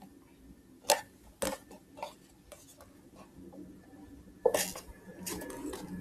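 Scissors snipping into a thin plastic bottle: a few sharp clicks of the blades about half a second apart, then a louder crackle and light knocks of the plastic bottle being handled about four and a half seconds in.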